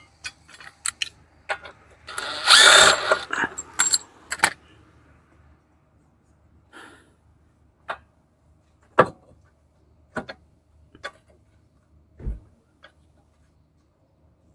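A power tool runs in one loud burst of about a second, about two seconds in, driving the mower's blade bolt. Sharp clicks and knocks of metal tools and parts are scattered around it.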